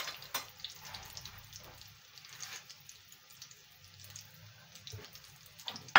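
Breaded chicken-and-potato cutlets shallow-frying in a pan of oil, the oil sizzling with scattered small pops. A sharp knock right at the end.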